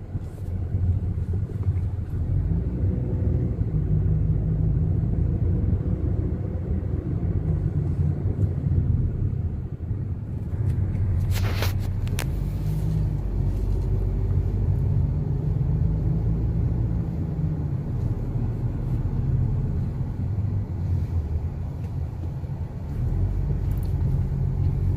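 Car on the move: a steady, low engine and road rumble, with a brief sharp high-pitched sound about eleven seconds in.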